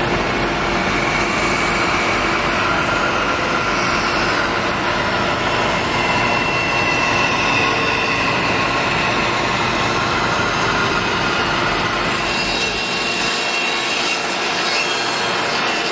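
Bandsaw running and cutting through a thick wooden leg blank: a steady machine whine mixed with the hiss of the blade in the wood. The deeper rumble drops away about thirteen seconds in.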